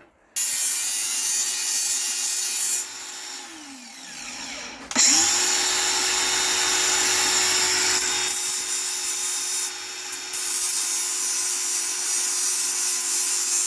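Electric drill working through the narrowboat's steel hull for a skin fitting, its motor running loud and steady. It winds down about three seconds in, then spins back up about five seconds in and keeps running.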